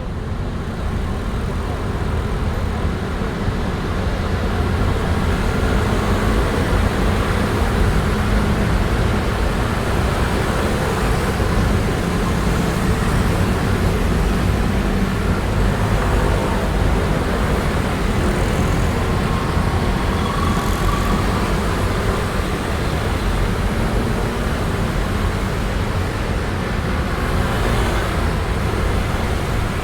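Dense stream of motor scooters pouring past, a steady din of many small engines and tyres.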